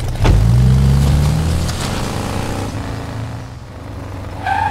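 Car engine sound effect: an engine revs up suddenly, then eases off and dies down over the next few seconds as the vehicle pulls away. A short higher squeal comes near the end.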